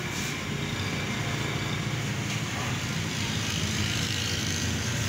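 Steady low roar with a hiss above it from the gas burner under a large steel karahi in which semolina halwa is being stirred.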